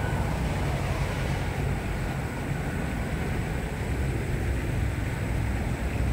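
A motor running steadily: a low, even rumble with a hiss over it.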